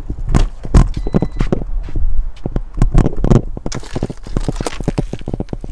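Irregular knocks, bumps and rubbing, several a second, as a cardboard box is pushed and handled in a car's cargo area, with the phone jostled close by.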